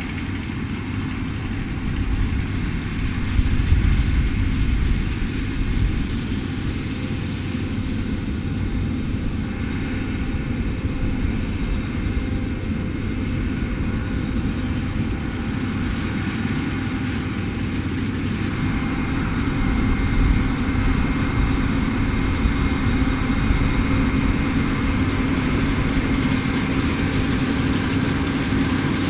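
New Holland CR11 combine harvester running steadily, a low engine drone with a faint steady high whine, swelling slightly a few seconds in and again around two-thirds through.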